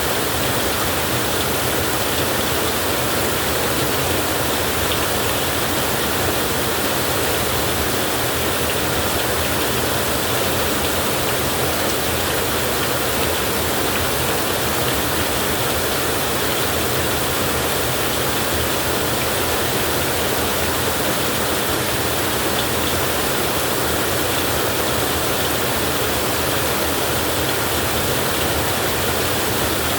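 Heavy rain falling in a steady, even hiss, with no thunder or separate drops standing out.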